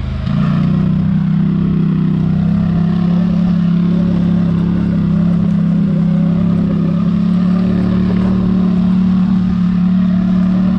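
Polaris Sportsman 850 ATV's twin-cylinder engine running at a steady, even pitch under way.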